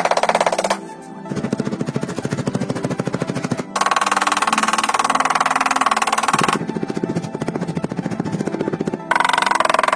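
A hammer beating rapidly on rusted, rotten car body sheet metal, knocking out the corroded metal: dense runs of strikes like a drum roll, several runs in a row that change pitch abruptly from one to the next.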